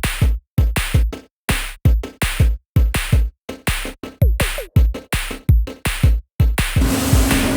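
Electronic music: short punchy drum-machine hits with brief dead silences between them. Near the end the gaps give way to a continuous noisy background with a steady low hum.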